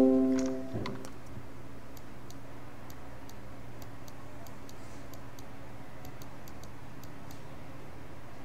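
The Windows device-connect chime rings out and fades over the first second as the Sony A6300 camera connects to the computer. After it, a steady faint hum with soft, irregular high ticks.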